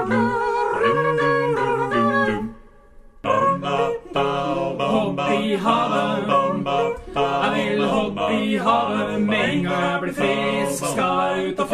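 A cappella vocal quartet singing in harmony, with several voices holding notes together. The singing breaks off briefly about two and a half seconds in, then starts again.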